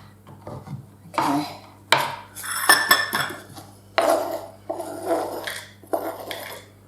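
Kitchen utensils clinking and scraping in a string of short, sharp knocks, some with a brief metallic ring, as chopped dark chocolate buttons are scooped into a half-cup measure.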